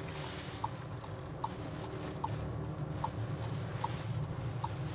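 A car's turn-signal indicator ticking evenly, about once every 0.8 seconds, over the low hum of engine and road noise inside a moving car.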